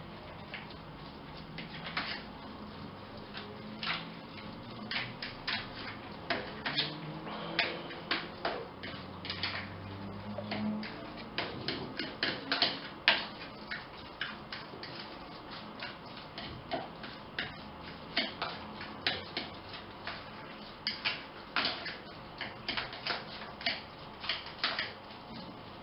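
Fork clicking against a container in quick, irregular runs of taps while cottage cheese, sugar and egg are mixed into an even paste.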